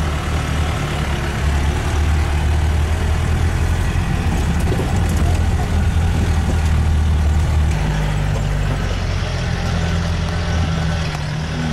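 Jeep engine running with a steady low drone, heard from inside the cabin while driving a rough dirt track; the drone changes note about eight seconds in.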